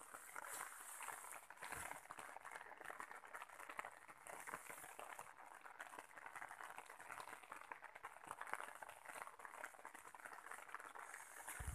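Light rain falling on an umbrella held overhead: a steady, fine crackle of many small drops. A low thump comes right at the end.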